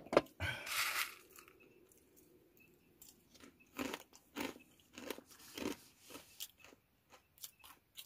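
Someone crunching and chewing Popeye snack, a crisp fried-noodle snack: a burst of noise about half a second in, then a run of short crunchy bites from the middle on.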